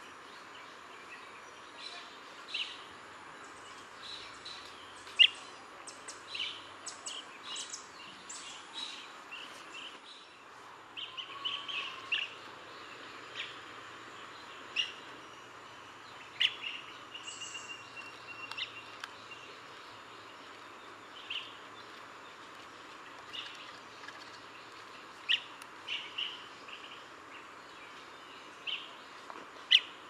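Blue-tailed bee-eater giving short, sharp chirping calls, repeated at irregular intervals, over a steady background hiss.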